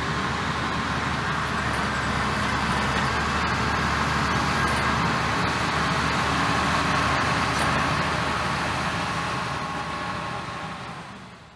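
Steady motorway traffic noise, fading out near the end.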